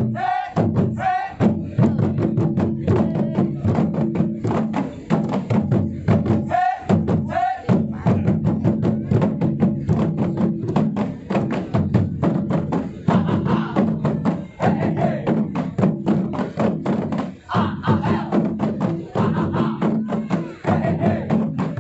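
Rampak gendang: an ensemble of West Javanese kendang barrel drums played fast together, a dense run of rapid strokes with deep booming drum tones. Short vocal calls cut in near the start and about seven seconds in.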